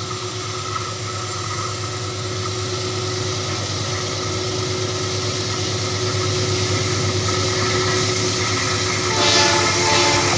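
Pair of GE AC44i diesel-electric locomotives approaching at the head of a double-stack container train, their engines a steady hum that grows slowly louder. The locomotive horn starts sounding about nine seconds in.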